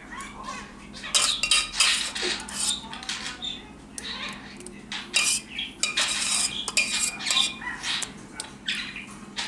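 Metal ladle scraping and clinking in a baking tray as thick warm custard is spread out into an even layer over biscuits: a run of short, irregular scrapes.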